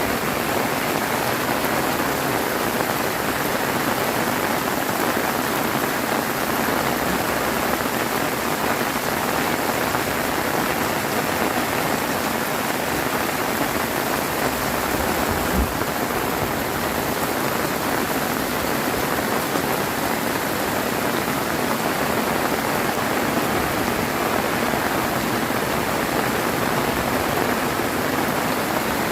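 Heavy rain pouring down steadily, an even dense hiss of rain on surfaces, with a single soft low thump about halfway through.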